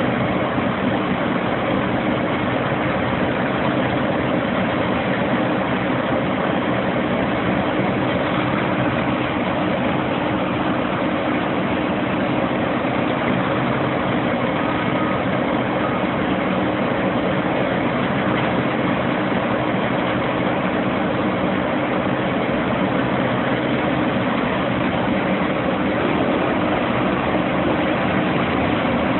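Vermeer HG6000 horizontal grinder's large diesel engine running steadily at a constant speed.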